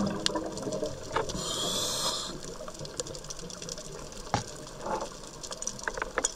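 Underwater sound of a scuba dive: scattered sharp clicks and crackles, with a brief hiss of the diver's regulator on an inhalation about a second and a half in, and a soft swell of bubbling near the end.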